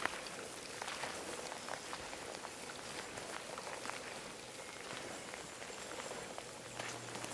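Steady rain pattering, full of small irregular drop ticks, with the rustle of someone walking through wet grass and moss.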